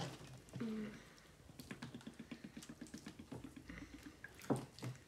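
Liquid laundry detergent glugging out of a jug in a quick, even run of about eight glugs a second as it is poured into glue slime to activate it. A single sharp knock comes near the end.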